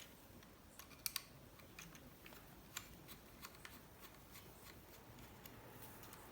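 Near silence with a few faint, scattered clicks and taps of a laptop hard drive and its small parts being handled.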